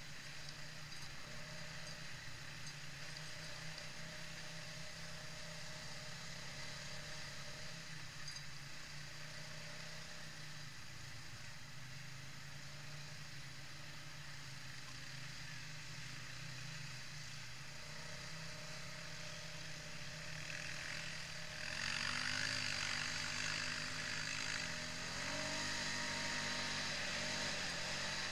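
Quad bike engine heard from on board, running steadily at low trail speed over a haze of wind and tyre noise. About three-quarters of the way through it picks up, louder and a step higher in pitch as the quad speeds up.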